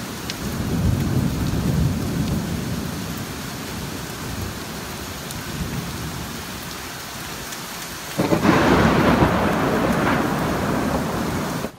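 Heavy rain falling with thunder: a low rolling rumble through the first half, then a louder clap of thunder about eight seconds in that rolls on for a few seconds.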